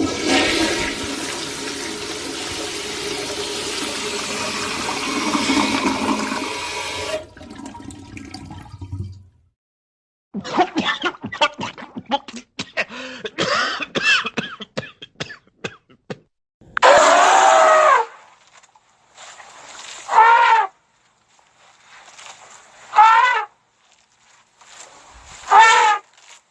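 A toilet flushing: a loud rush of water for about seven seconds that trails off. Next comes a run of quick clicks and crackles. Last, a pitched call sounds, followed by three shorter calls falling in pitch, about three seconds apart.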